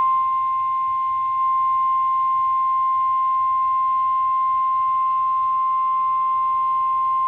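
Emergency Alert System attention tone: a single steady, piercing tone of about 1 kHz. It signals that a severe weather warning message is about to be read.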